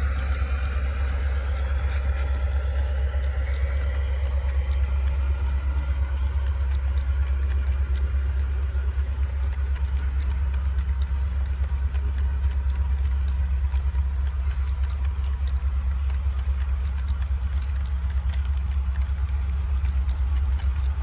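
Model train running along the track: a steady low rumble with faint, irregular clicks.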